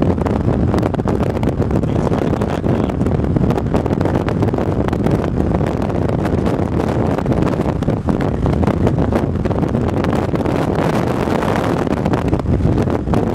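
Steady wind and road noise from a moving vehicle, with many small ticks running through it.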